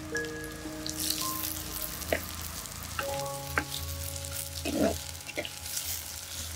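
Chopped green chillies, sliced shallots and garlic sizzling in hot oil in a clay pot, the sizzle growing louder about a second in. A ladle stirs through them, knocking against the pot a few times.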